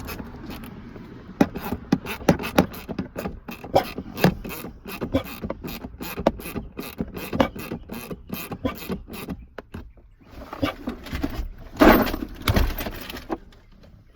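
Ratchet with a 12 mm socket clicking in quick, uneven runs as bolts under the steering column are loosened. A louder scraping rustle comes near the end.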